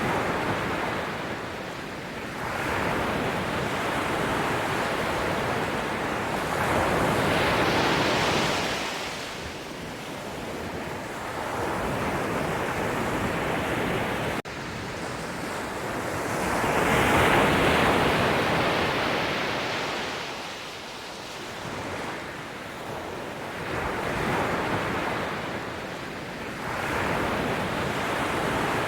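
Ocean waves breaking and washing ashore, rising and falling in slow surges every few seconds. The biggest waves come about a quarter of the way in and again just past the middle.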